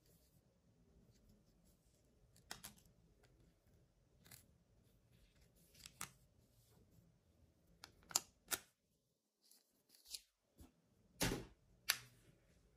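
Light clicks and snaps of a clear plastic SD memory card case being opened and closed and the card handled, with the sharpest clicks coming in the second half.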